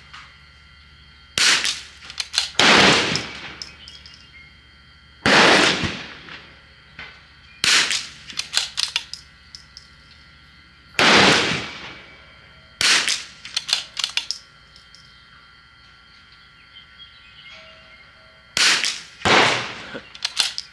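.22 rimfire shots from a CZ bolt-action rifle firing Eley match ammunition, single sharp cracks several seconds apart, with the bolt being worked between shots.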